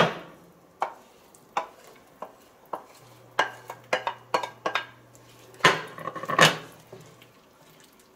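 Diced potatoes tipped from a plate into a stainless steel pan of broth and vegetables, then stirred in with a wooden spoon: a string of sharp knocks and clinks against the pan, the two loudest about six seconds in.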